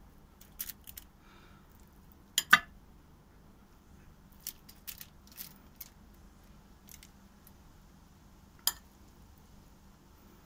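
Metal spoon clinking and scraping against a glass bowl and a foil-lined baking dish while spooning cooked rice: scattered light taps, the loudest a sharp double click about two and a half seconds in and another sharp click near the end.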